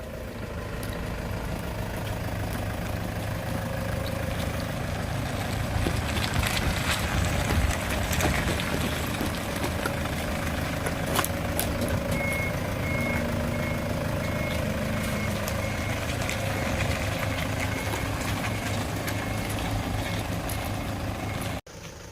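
Steady engine and road noise of a camper van on the move, with a faint high beep repeating from about halfway through; the sound cuts off suddenly just before the end.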